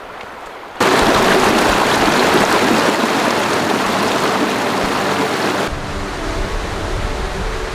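A small mountain creek rushing and splashing over rocks, heard up close and loud. It starts abruptly about a second in, and near the end it drops to a softer, more distant rush of water.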